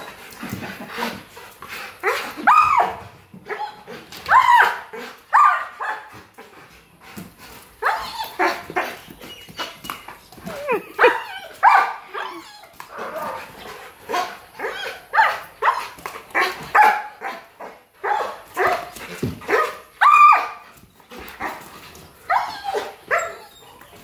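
Rottweilers barking over and over in quick clusters, excited play barking as they jump for a balloon.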